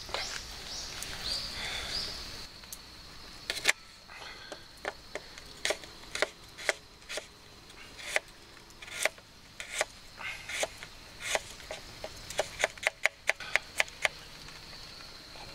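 Small knife slicing garlic cloves on a wooden cutting board: sharp, irregular knocks of the blade striking the board, coming in a quicker run near the end.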